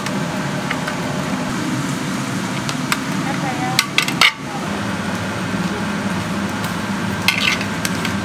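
Food sizzling steadily, with a few sharp clinks and knocks of metal utensils. The loudest is a quick cluster of them about four seconds in.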